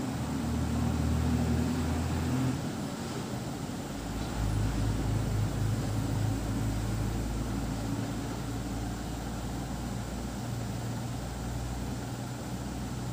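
Steady low mechanical hum of a running motor, its pitch shifting about two and a half seconds in and again at about four seconds.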